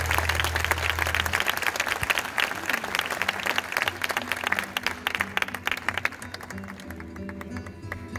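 Audience applauding at the end of a song, over a low held final note from the band that stops about a second and a half in. The clapping dies away near the end as a few steady instrument notes sound.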